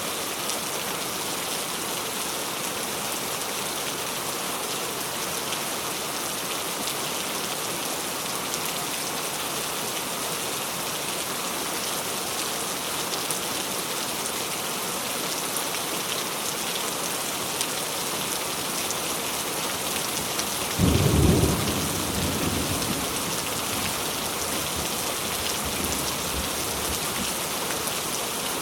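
Steady rain falling, an even hiss. About two-thirds of the way through a sudden clap of thunder breaks in, the loudest sound here, and fades out in a low rumble over a few seconds.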